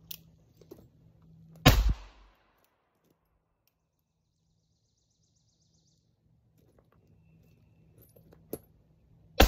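Two shots from a .44 cap-and-ball revolver, a Pietta replica of the 1860 Colt Army, firing black-powder loads. The first comes about a second and a half in, and the second right at the end, each loud with a ringing tail. A sharp click sounds just under a second before the second shot.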